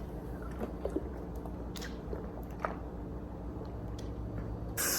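A person chewing a mouthful of instant noodles, with a few faint soft clicks. A short hiss comes near the end.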